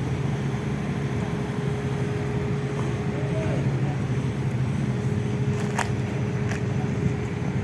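Heavy diesel engine running steadily with an even low hum and a thin steady whine over it, plus a couple of short clicks about six seconds in.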